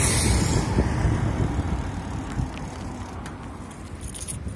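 Low rumble of wind on the microphone and road noise from a moving mountain bike, fading gradually, with a few light rattling clicks near the end.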